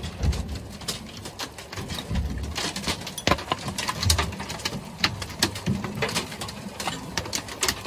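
Large hailstones clattering irregularly on an aluminium boat's tread-plate deck and fittings, with gusts of wind rumbling on the microphone.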